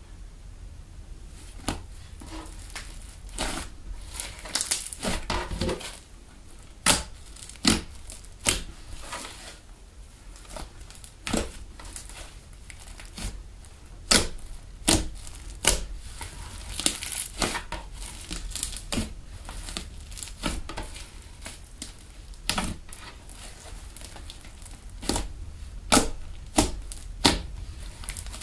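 Pink hand-foam PVA slime being stretched, pressed and kneaded by hand, giving irregular sharp pops and crackles, sometimes in quick runs, as it folds and tears.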